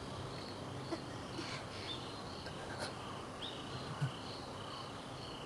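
Faint outdoor ambience: insects chirping softly over a low steady background noise, with a couple of small ticks.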